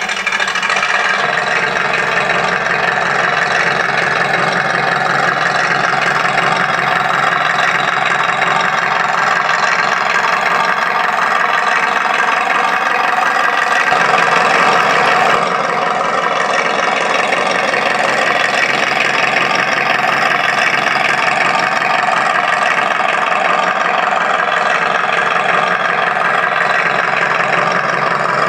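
RC M26 Pershing model tank's sound unit playing a simulated tank engine start-up and steady idle. It swells briefly about halfway through, then settles back.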